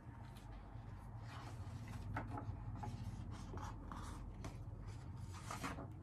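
Paper pages of a hardcover picture book rustling and scraping softly as they are turned, in a series of short strokes.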